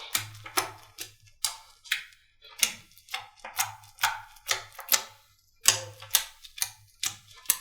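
Slime being squeezed and pressed by hand, giving a run of sharp, wet clicks and pops about twice a second.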